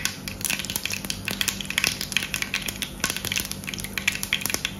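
Seeds crackling and popping in hot oil in a frying pan, an irregular patter of small sharp pops several times a second: the oil is hot enough for tempering.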